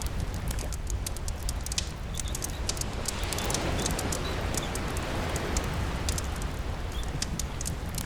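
Campfire crackling with frequent sharp pops, over steady rain and the low rumble of the sea; a wave swells and washes in about halfway through.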